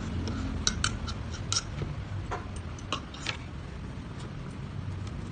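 Metal fork and spoon clinking and scraping against a ceramic plate while grilled tilapia flesh is picked apart. There are several sharp clinks, then it goes quieter near the end, over a steady low hum.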